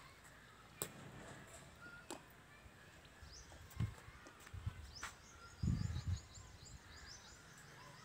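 Small birds chirping in the background, with a few dull low thuds, the loudest just under six seconds in.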